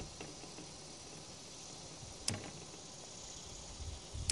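Faint steady hiss with a sharp click about two seconds in and another at the very end, from handling the metal fish grippers clamped on a landed bass.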